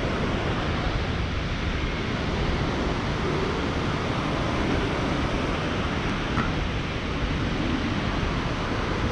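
Steady wind rushing over the microphone in paragliding flight, an even noise with no let-up.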